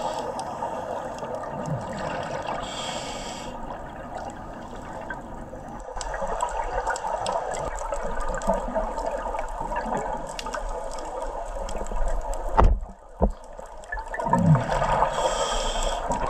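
Underwater sound picked up through a diving camera's housing: a steady muffled watery rush with bubbling from scuba divers' exhaled air, small clicks, and one sharp knock about two-thirds through.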